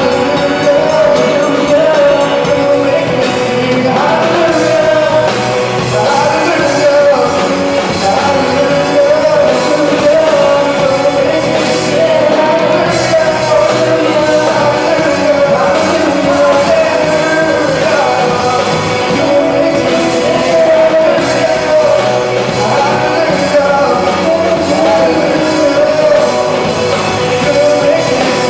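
Live band performing a rock-style worship song: young male voices singing over electric guitar.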